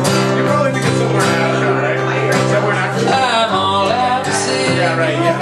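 Acoustic guitar strummed with chords held, with a sung line near the middle, in a short live folk-country song.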